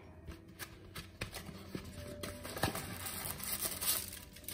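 Thin plastic oven roasting bag crinkling and rustling as it is drawn out of its cardboard box, a run of small clicks that gets busier about three seconds in.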